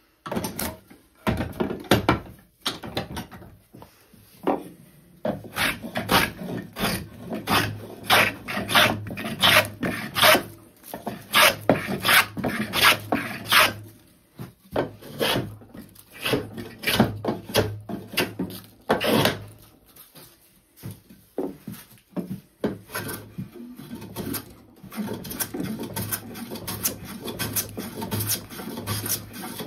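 Hand plane taking repeated strokes along the edge of a spruce board while squaring it up, each stroke a short rasping swish of a shaving being cut, with brief pauses between runs of strokes.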